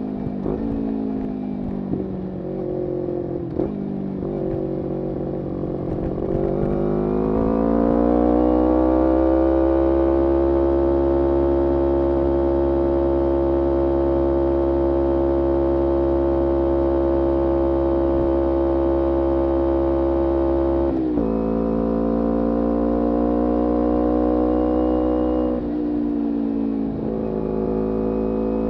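Kawasaki Ninja 250R's parallel-twin engine through a full Graves racing exhaust. The engine note wavers with a few sharp clicks at first, then climbs in pitch and holds steady for a long stretch. About two-thirds of the way in it drops suddenly, settles, and later dips and climbs again.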